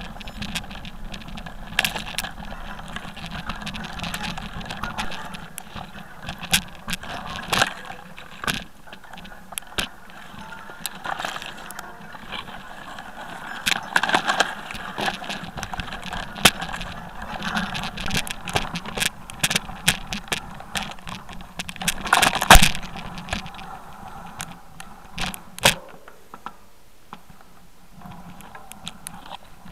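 Clattering and rattling of a handlebar-mounted camera riding over a rough, stony trail through dense brush, with many sharp knocks from the ground and a steady rumble underneath. The loudest cluster of knocks comes about 22 seconds in, and it goes briefly quieter a few seconds later.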